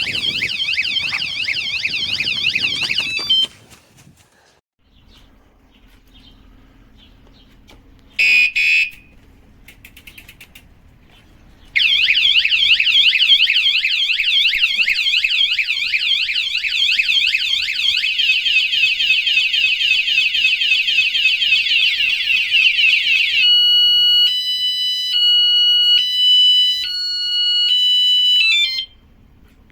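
Motion-sensor bike alarm siren going off after the scooter is bumped or moved. A fast high warbling wail cuts off after about three and a half seconds, and a short burst of beeps follows. After a pause, a longer warbling siren changes pattern partway, then turns into an alternating stepped two-tone sequence before stopping near the end.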